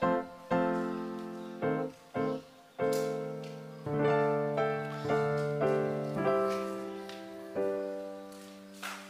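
Background piano music, slow notes and chords struck and left to ring out.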